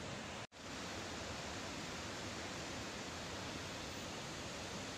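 Floodwater rushing out of a reservoir's open sluice gates during a flood release: a steady, dense rushing noise that cuts out for an instant about half a second in.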